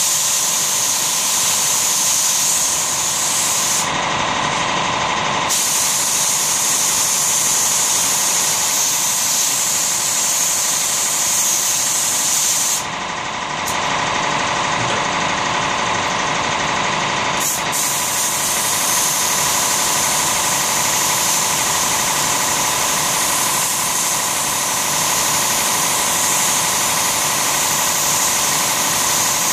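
Compressed-air siphon-cup spray gun hissing steadily as it sprays finish onto wood. The spray stops twice, briefly about four seconds in and for a few seconds around the middle, while a steady mechanical hum continues underneath.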